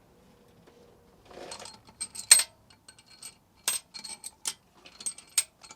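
Steel head bolts and washers clinking as they are handled and set into the cylinder head: a string of sharp metallic clinks with a short ringing tone, starting about a second and a half in.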